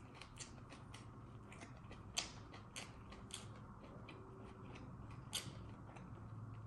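Faint, irregular clicks and smacks of a person chewing and eating, with two louder clicks about two and five seconds in.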